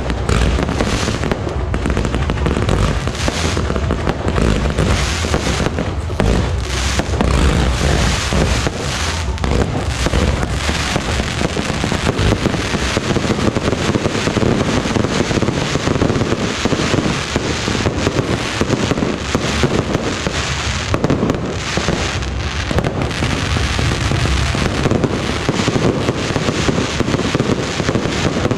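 Fireworks display: rising shells and aerial bursts going off in a rapid, unbroken barrage of overlapping bangs and crackles.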